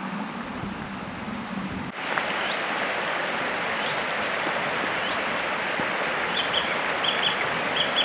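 Steady rushing of river water with small birds chirping and singing over it. The rush gets louder abruptly about two seconds in, and short high chirps come in quick pairs near the end.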